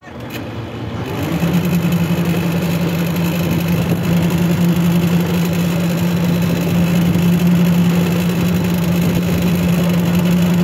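Engine running steadily with a low, even hum while a homemade gill net hauler pulls net aboard a fishing boat; the sound builds over the first second and a half, then holds.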